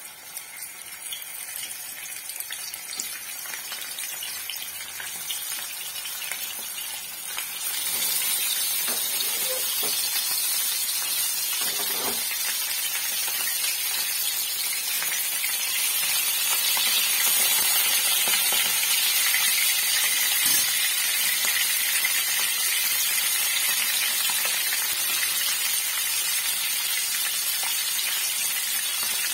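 Whole climbing perch (koi) sizzling as they fry in hot mustard oil in a frying pan. The sizzle builds as more fish go in, steps up sharply about eight seconds in, and then holds steady and loud.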